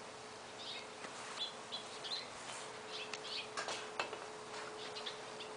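Small songbirds chirping in short scattered calls, with a faint steady hum underneath.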